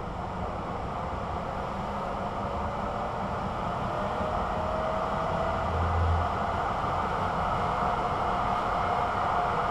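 Duewag GT8 articulated tram running and accelerating: its motor whine rises slowly in pitch and then levels off over a steady rail rumble that grows louder. A brief low thump comes about six seconds in.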